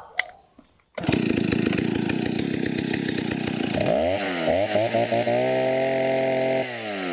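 Old Stihl two-stroke chainsaw that comes in suddenly about a second in and runs, is revved up and down twice, held at high revs for about a second, then drops back toward idle near the end.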